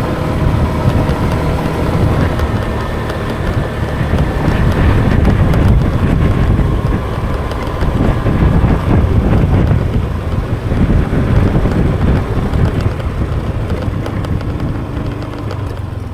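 Motorbike engine running steadily as the bike is ridden along a road.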